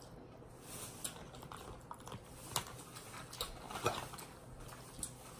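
Eating sounds at a seafood boil: scattered small clicks, taps and crackles of shells and food being handled and picked apart by hand, a couple of sharper cracks among them.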